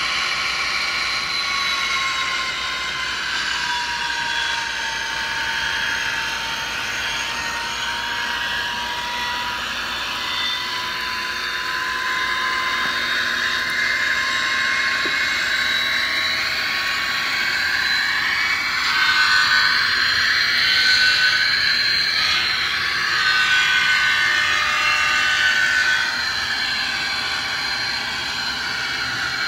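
HO-scale DCC-equipped diesel locomotive running on straight DC from a vintage transformer power pack, its small motor and gears giving a steady high whine as it rolls around the track.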